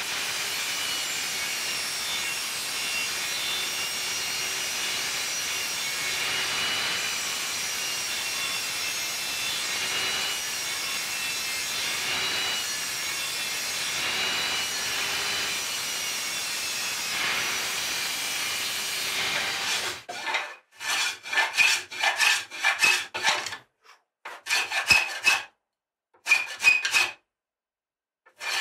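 Table saw running steadily as it rips a long strip of mahogany trim. About twenty seconds in, this gives way to a run of short, irregular hand-tool strokes rasping on the wood.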